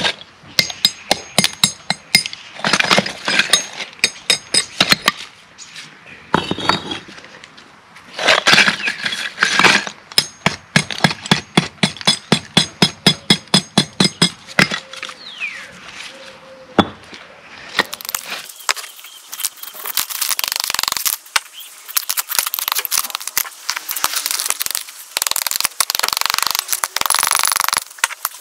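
A hammer chipping old mortar off bricks: groups of sharp strikes, with a steady run of about four a second in the middle, then a denser, noisier stretch of chipping in the last ten seconds.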